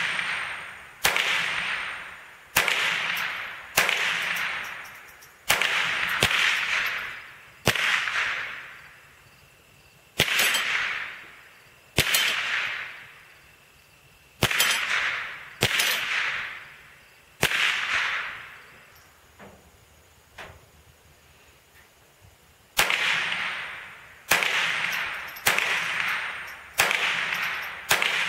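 Ruger SR-22 .22 LR semi-automatic rifle firing single shots at an irregular pace, roughly one every one to two seconds, each sharp crack trailing off in a long echo. About two-thirds of the way through the firing stops for about five seconds, with two faint clicks, then resumes with a quicker run of shots.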